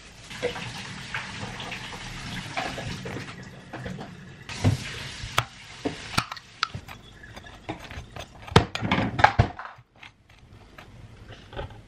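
Butter sizzling under slices of bread on a hot stovetop griddle, a steady hiss for the first few seconds with a shorter burst a little later. From about the middle on come short clicks and knocks of a jar and a table knife on a cutting board.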